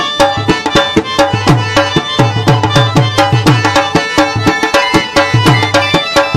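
Instrumental passage of Pashto folk music: hand drums play a fast, even beat, the low drum's pitch sliding down after many strokes, under steady held melody notes.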